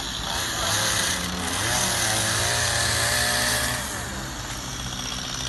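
Chainsaw engine running with its revs wavering up and down, over a hiss that fades about four seconds in.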